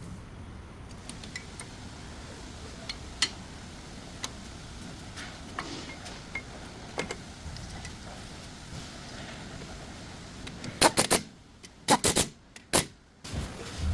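Scattered light clicks and clinks over a low steady hum, then several loud knocks close together near the end.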